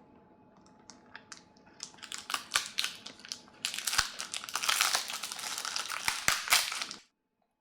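Crinkling and crackling with sharp clicks, sparse at first, growing busier from about two seconds in, then cutting off abruptly about seven seconds in.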